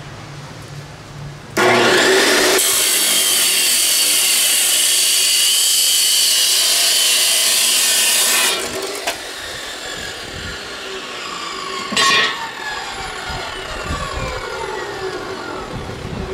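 DeWalt 14-inch abrasive chop saw starting up about a second and a half in, then its abrasive wheel grinding through steel square tubing for about six seconds with a loud, steady high whine. When the cut finishes the motor is switched off and the wheel spins down with a slowly falling whine, broken by one short loud burst about twelve seconds in.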